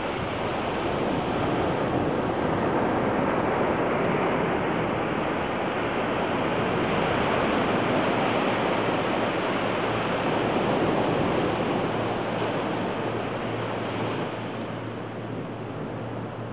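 Ocean surf washing on a sandy beach: a steady rushing sound that eases off near the end.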